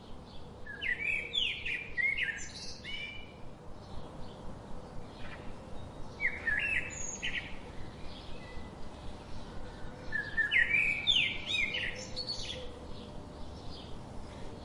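Songbirds chirping and singing: three clusters of quick, high chirps and short sweeping notes, at the start, about six seconds in and about ten seconds in, with softer repeated calls between them.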